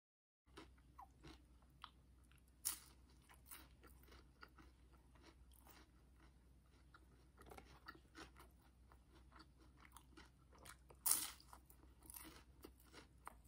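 Faint close-miked chewing of food: soft crunches and wet mouth clicks, with two louder crunches, about 3 seconds in and about 11 seconds in.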